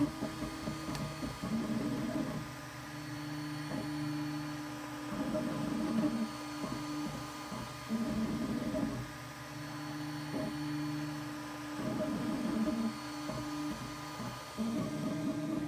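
Ultimaker 2+ 3D printer mid-print: its stepper motors whine in tones that start, stop and change pitch every second or so as the print head moves back and forth, over the steady hum of the print head's cooling fans.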